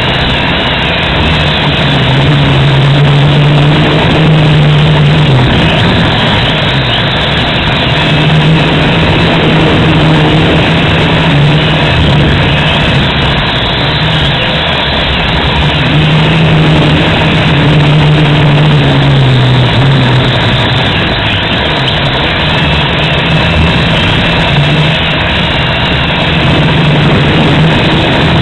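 FPV drone's motors and propellers running loud and steady, their hum repeatedly rising and falling in pitch as the throttle changes, over a rushing noise.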